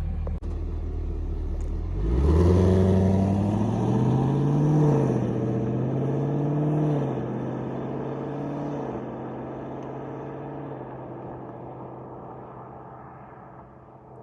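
2021 Camaro SS's 6.2-litre LT1 V8 through its dual-mode exhaust in Tour mode. It idles, then pulls away gently about two seconds in, its pitch climbing and dropping back at two upshifts. The sound fades steadily as the car drives off.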